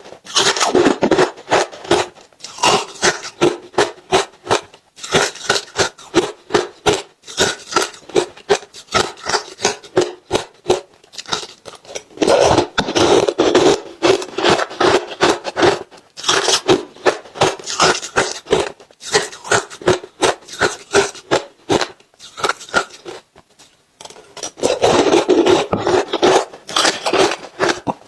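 Ice being eaten: rapid crunching and scraping crackles in bursts with brief pauses between them, busiest about halfway through and again near the end.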